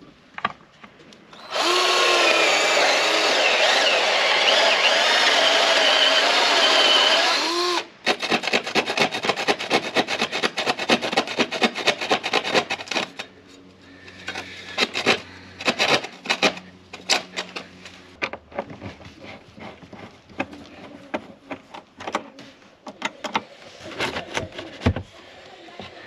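Power drill running for about six seconds with its pitch wavering, as a door is being taken off. It winds down, and is followed by several seconds of rapid clicking, then scattered knocks and clatters.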